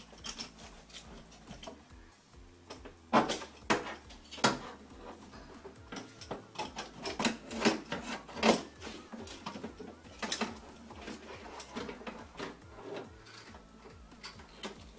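Irregular sharp clicks and knocks of tools and metal and plastic door parts being handled while a van door's window regulator is dismantled, over quiet background music with steady low notes. The loudest knocks come about three seconds in, at four and a half seconds, twice around eight seconds, and at ten seconds.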